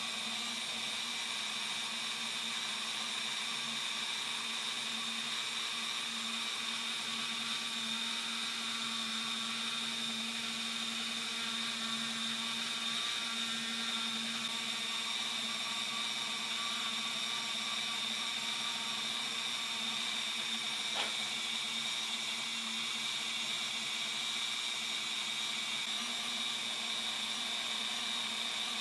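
Handheld rotary tool with a small burr bit running at a steady high speed, a constant motor whine with grinding noise as it cuts side scoops into a diecast metal car body. A brief tick about 21 seconds in.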